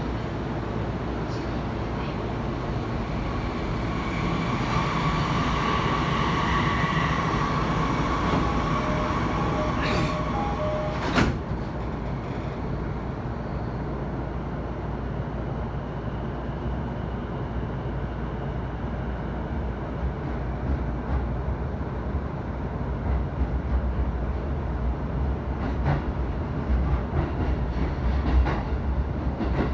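Interior running noise of an electric commuter train car: a steady low rumble, with a high whine over it for several seconds early on. A single sharp knock comes about eleven seconds in, after which the rumble carries on steadily.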